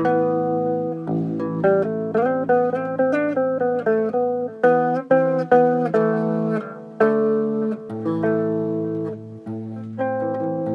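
Electric bass guitar played melodically: quick plucked notes and short runs, with lower notes left ringing together underneath and shifting every few seconds.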